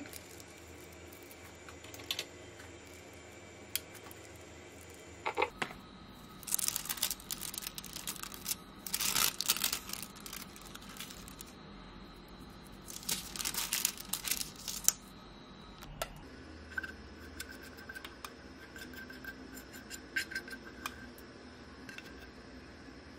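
Baking paper crinkling and rustling as hands press and shift the sheet around a flattened disc of dalgona sugar candy, in three crisp bursts a couple of seconds each.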